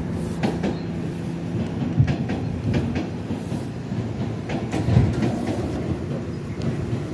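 New York City subway train running along the track, heard from inside the car: a steady rumble with the wheels clicking over rail joints, and heavier knocks about two and five seconds in.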